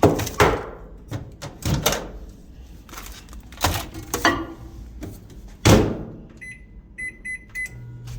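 Several sharp knocks and thunks as a microwave door and a food container are handled, then near the end a quick run of short, high electronic beeps as the microwave's keypad is pressed.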